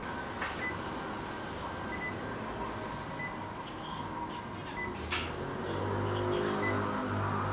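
Cordless phone keypad beeping as a number is dialled: short high beeps about a second apart, with a couple of sharp clicks, and a low steady hum that comes in near the end.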